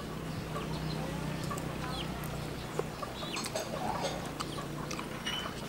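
Chickens clucking now and then, with light clicks of a spoon on a plate and a steady low hum underneath.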